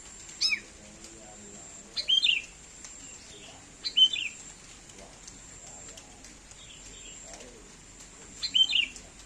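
Sooty-headed bulbul (kutilang) giving four short calls, each falling in pitch, at a bird said to call like a cat's meow.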